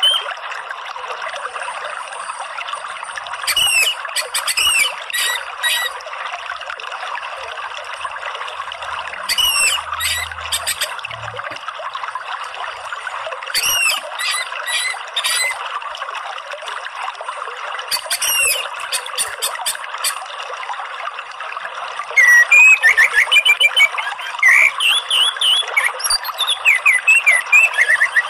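Orange-headed thrush singing over a steady sound of running water: short groups of rapid, high chirping notes every few seconds, then louder, warbled phrases from about two-thirds of the way through.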